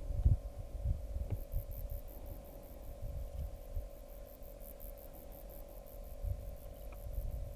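Wind buffeting the microphone in low, uneven gusts over a steady faint hum. From about a second and a half in, a faint high-pitched pulsing repeats several times a second.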